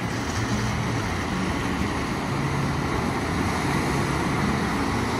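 Steady road and engine noise of a Toyota HiAce camper van driving, with a low hum under the tyre and wind noise.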